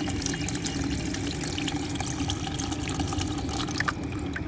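Water pumped by a small submersible 12 V brushless DC pump (DC30A-1230) splashing steadily, with a faint steady low hum under it. The splashing hiss lessens near the end.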